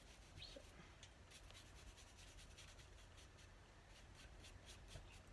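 Faint, quick strokes of a paintbrush brushing paint onto a tube, a few a second, over a low steady room hum.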